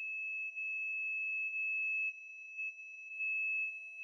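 A steady, high-pitched pure tone, the ear-ringing sound effect of film edits, holding one pitch with a much fainter lower tone beneath it.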